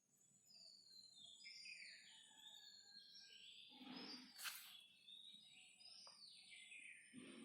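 Faint birdsong: a run of short whistled calls that slide down in pitch, with a single sharp click about four and a half seconds in.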